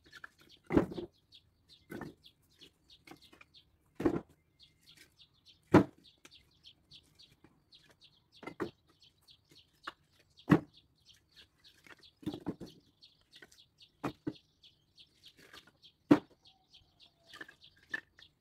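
Split firewood being stacked onto a woodpile: about nine sharp wooden knocks, roughly every two seconds, as pieces are set down on the pile. Small birds chirp quickly and steadily in the background.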